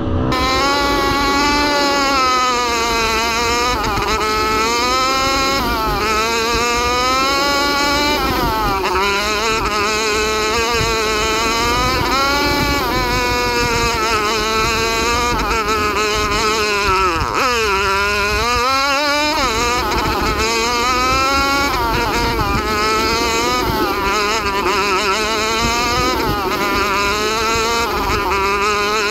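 Chinese 125cc four-stroke dirt bike engine running hard on a trail ride, its pitch rising and falling constantly with the throttle and gear changes. About two-thirds of the way through the revs drop sharply, then climb back up.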